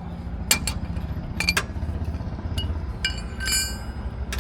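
Metal clicks and clinks of a steel wheel spanner on a car's wheel nuts as they are undone, with a ringing metallic clink a little after three seconds in. A steady low engine hum runs underneath.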